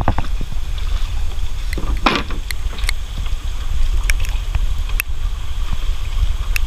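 Small river boat under way: a steady low rumble with scattered knocks and clicks, and a short rushing noise about two seconds in.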